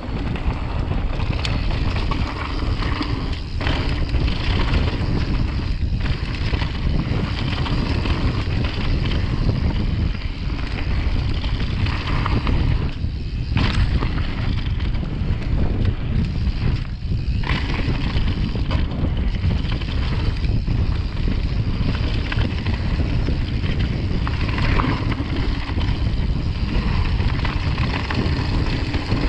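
Wind rushing over the handlebar-mounted camera's microphone while a mountain bike rolls fast down a dirt and gravel trail, its tyres crunching on the ground, with a few sharp knocks from bumps.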